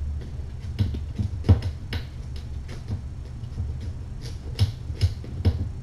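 Light, irregular clicks and knocks of kittens scrambling and wrestling, a dozen or so, the loudest about a second and a half in and again near the end, over a steady low hum.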